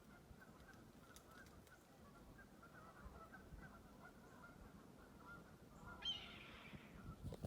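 Red-tailed hawk giving one hoarse, downward-slurred scream about six seconds in, lasting under a second.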